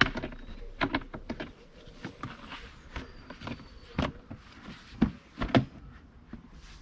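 Plastic grass-collection box of a Flymo Speedi-Mo 360C lawnmower being put together by hand: a string of plastic clicks, knocks and rattles as the grey lower half is fitted onto the red top frame, with two louder knocks about five seconds in.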